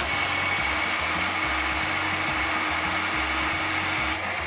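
Countertop food processor running continuously, its motor whirring steadily as it blends a fennel and olive tapenade. The tone of the whir changes about four seconds in.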